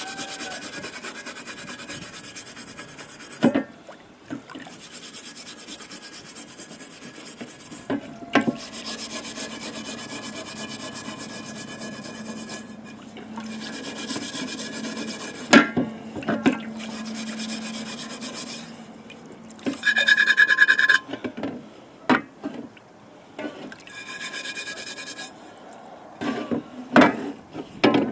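Abrasive scrubbing or sanding of rust off a cast iron skillet, in long steady stretches with pauses, broken by several sharp knocks.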